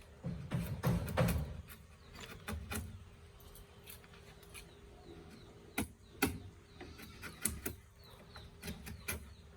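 Scattered knocks and clicks, such as wood being handled and tapped during door-making, with the sharpest knocks about six seconds in and again near seven and a half.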